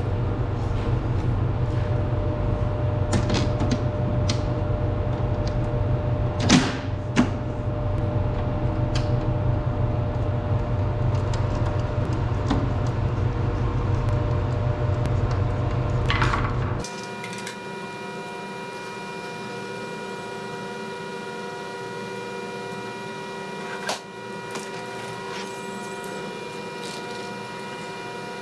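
Steady low machine hum in a workshop, with two sharp metal clicks about six and seven seconds in as the sheet-metal cover goes back onto the drive cabinet. It changes suddenly about two-thirds of the way through to a quieter, higher steady hum, broken once by a click.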